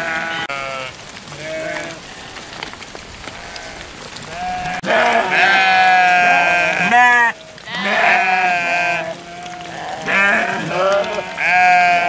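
A large flock of sheep bleating, many calls overlapping one another. A few calls in the first seconds, then a dense chorus of loud bleats from about five seconds in.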